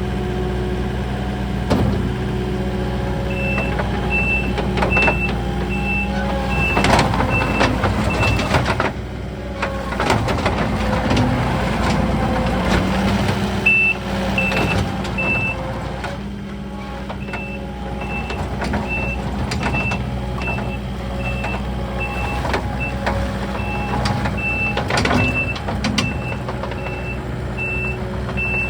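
Takeuchi TL8 compact track loader's diesel engine running and working, its pitch shifting with load. The reverse alarm beeps about one and a half times a second in three stretches as the loader backs up. A few sharp clanks are heard along the way.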